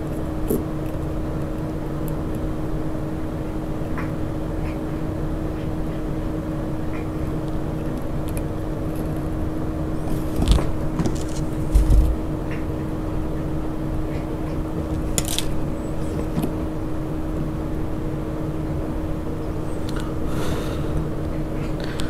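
Steady hum of a small fan or motor with one held tone, and a few light clicks and a soft knock about ten and twelve seconds in as small parts are handled at the soldering bench.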